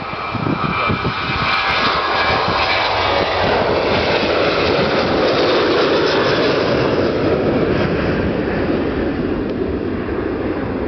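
Boeing 737-800's CFM56-7B turbofan engines at take-off thrust as the airliner takes off and climbs past. A whine of fan tones in the first few seconds gives way to a loud rush of jet noise that peaks about halfway and falls in pitch as the aircraft climbs away.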